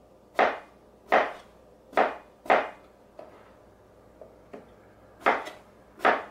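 Chef's knife chopping peeled eggplant into small cubes on a cutting board: four sharp knife strikes in the first two and a half seconds, a pause with a few light taps, then two more strikes near the end.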